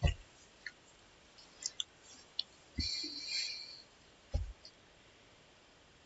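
Scattered sharp clicks and three dull knocks, with a brief scratchy rustle about three seconds in.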